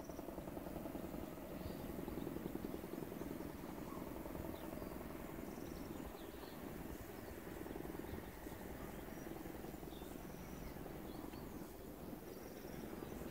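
Faint open-air ambience: a low steady rumble and hiss, with short high insect chirps every few seconds from the grassy verges.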